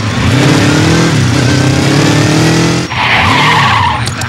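Motorcycle engines revving up and down, then a short tyre skid about three seconds in as the bikes brake to a stop.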